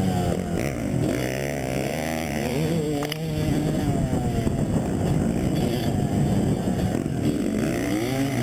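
Motocross dirt bike engines revving up and down on a track, the pitch rising and dropping over and over as the bikes accelerate and back off. More than one bike can be heard at once.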